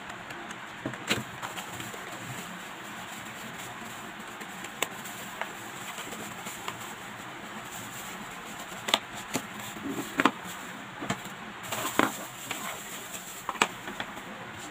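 A cardboard mouse box being opened and the mouse in its clear plastic wrap slid out and unwrapped: scattered sharp crinkles and taps over a steady hiss, busiest in the second half.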